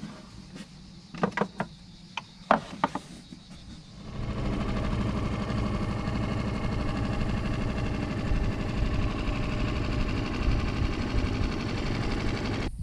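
A few sharp knocks and clatters as a wooden cutting board and knife are handled, then from about four seconds in a small boat's motor running steadily at a constant speed, heard from aboard the boat.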